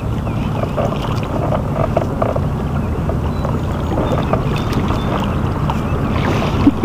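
Steady low rumble and hiss of wind and water noise on the microphone of a fishing kayak.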